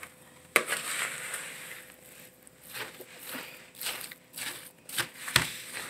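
Hands mixing a thick, crumbly peanut butter and pretzel-crumb crust in a plastic bowl: irregular rustling noises with a few sharp clicks.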